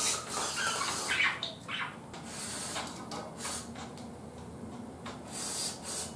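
Aerosol can of whipped cream spraying cream onto desserts in several short hissing squirts, with brief pauses between them.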